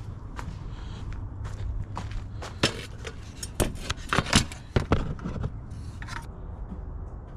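Factory 6x9 speakers and their metal brackets being worked loose by hand from a car's rear deck: scattered clicks, knocks and scrapes, with a burst of sharp knocks in the middle and a short scrape near the end.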